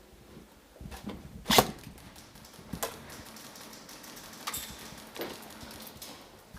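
Irregular sharp knocks and clicks, the loudest about a second and a half in, with several fainter ones after it.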